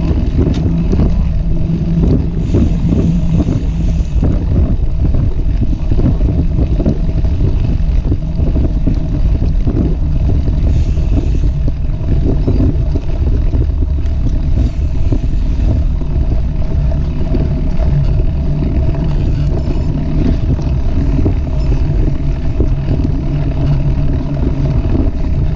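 Wind buffeting an action camera's microphone while a mountain bike's tyres rumble over a dirt trail: a loud, steady noise with a low hum underneath.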